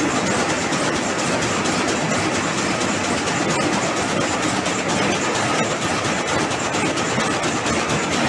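High-speed rapier weaving loom with an electronic jacquard head running at speed: a steady, rapid mechanical clatter of the weaving cycle.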